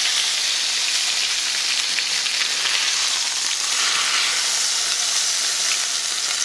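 Olive oil and butter sizzling steadily in a frying pan around seared, flour-coated chicken breasts.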